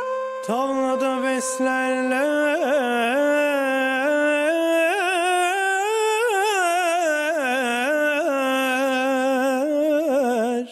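A male singer holding a long melismatic vocal line in Turkish classical style, from a köçekçe in makam gerdaniye. The line is full of quick wavering turns, climbs slowly to a peak about six seconds in, then settles back down.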